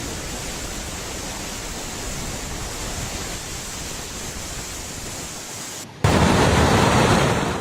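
Steady rush of fast-flowing floodwater. About six seconds in it cuts suddenly to a louder, deeper rush.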